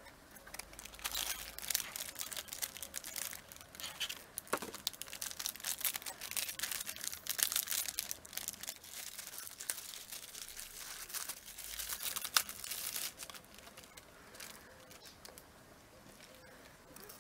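Plastic snack packet being torn open and handled, a dense run of crinkling and crackling rustles that dies down after about thirteen seconds.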